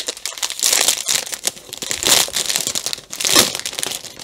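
Small clear plastic bags of diamond-painting drills crinkling as they are handled, with louder crinkles about every second.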